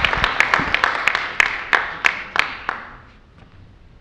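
Audience applauding, the clapping thinning out and stopping about three seconds in.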